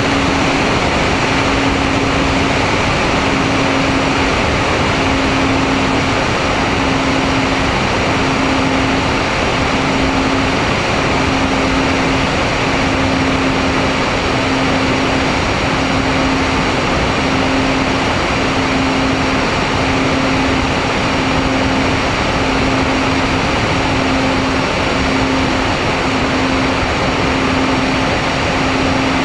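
Twin electric motors and propellers of an MFD 1800 twin RC plane in steady cruise, heard from the plane's onboard camera: a steady propeller hum that pulses evenly, a little more than once a second, over heavy wind rush.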